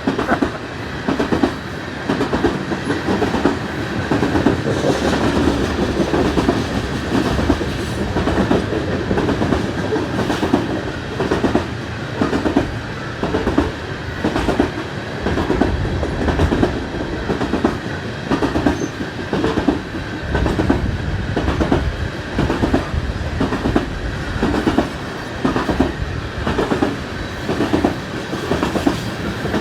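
Freight train cars rolling past, steel wheels clicking over rail joints in a steady repeating rhythm over a continuous rumble.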